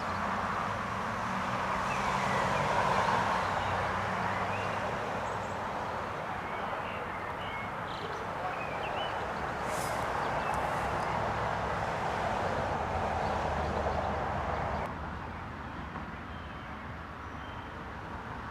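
Outdoor background noise: a steady rumble of passing road traffic with a few short bird chirps, dropping to a quieter hum about fifteen seconds in.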